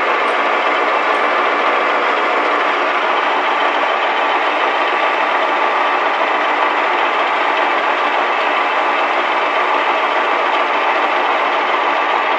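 Metal lathe running, its chuck spinning a steel bar: a steady mechanical drone from the headstock with a faint whine.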